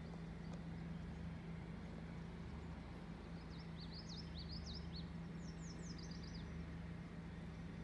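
A small bird sings a quick run of high, sweeping chirps from about three to six and a half seconds in, over a steady low hum.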